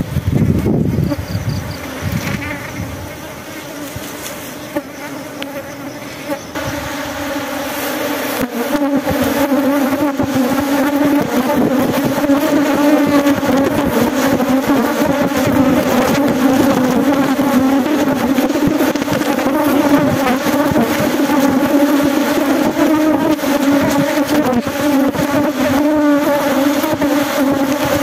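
A dense colony of honeybees buzzing, a steady, loud hum that swells about eight seconds in and then holds. The bees are being smoked as their comb is opened for honey.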